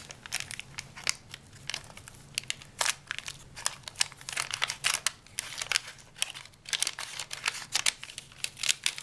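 Wax paper wrapper of a 1971 O-Pee-Chee baseball card pack being opened, crinkling and crackling in many irregular sharp bursts.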